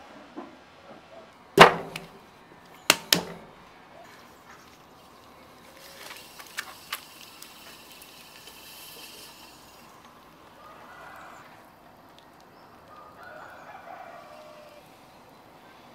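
Sharp knocks of leather-hard clay pots being handled and set down on a wooden ware board, one about a second and a half in and a quick double knock about three seconds in, followed by some rustling. Faint rooster crowing sounds twice in the background later on.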